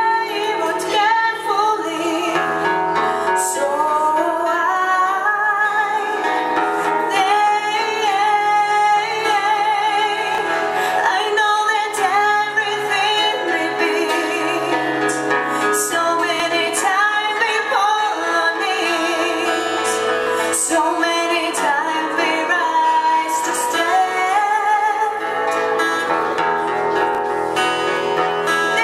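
Live band playing a song: a woman singing a high melody with vibrato on the held notes, over guitar and steady low bass notes, in a large room.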